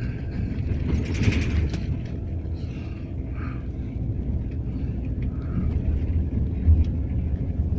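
Bus in motion with a steady low engine and road rumble. About a second in comes one loud, rasping snore from a sleeping passenger.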